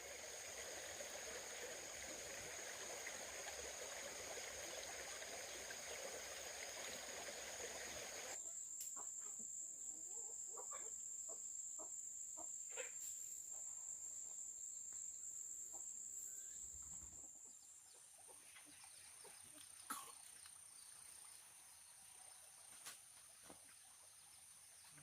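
Chickens clucking now and then over a steady high-pitched whine. A rushing noise that fills the first eight seconds stops suddenly.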